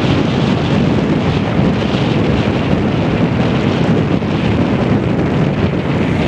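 Strong wind buffeting the camera microphone: a loud, steady, low rushing noise.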